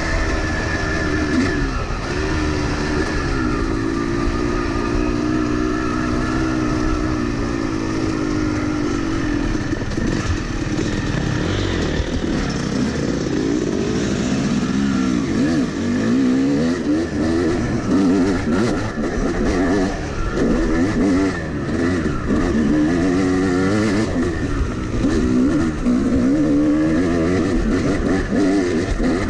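Yamaha YZ250-series two-stroke dirt bike engine running under load on the throttle. The revs hold fairly even at first, then rise and fall quickly and repeatedly from about halfway through.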